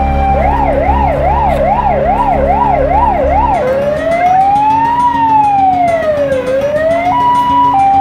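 Emergency vehicle's electronic siren switching between modes: a fast yelp, then about three and a half seconds in one slow wail rising and falling, then a two-tone hi-lo near the end. A low rumble runs under it and stops at the change to the wail.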